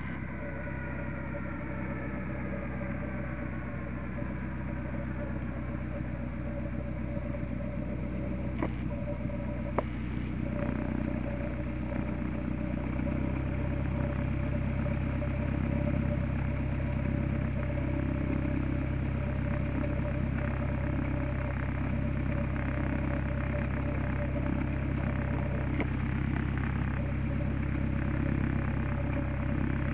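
Cessna 172's piston engine and propeller running at low power while taxiing, a steady hum that grows louder about halfway through as the plane comes close, then holds steady.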